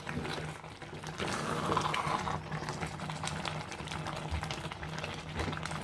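Thick mixed-fruit jam pulp bubbling and popping in a clay pot while a wooden spatula stirs and scrapes through it, over a steady low hum. The bubbling is the cue for judging when the fruit has cooked down thick enough.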